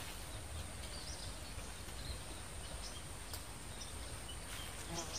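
Quiet outdoor ambience: a steady low background rumble with a few faint, scattered bird chirps.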